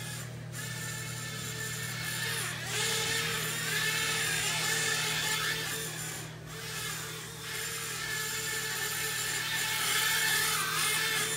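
Blade Inductrix Switch hovercraft's four small ducted-fan electric motors whining. The pitch rises and falls as the throttle changes.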